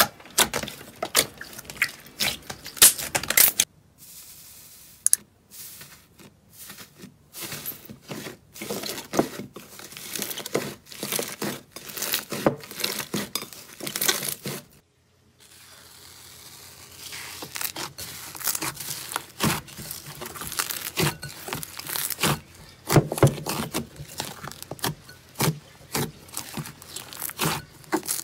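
Slime being pressed and poked by hand, making dense crackling, popping and crinkling sounds in a run of short clips. The sound drops off briefly about four seconds in and again about fifteen seconds in.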